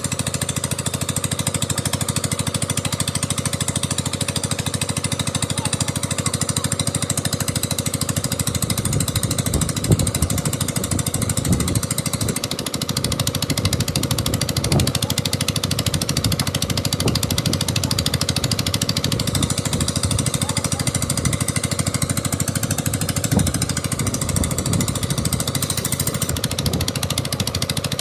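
Construction machinery running steadily with a rapid, even hammering rattle.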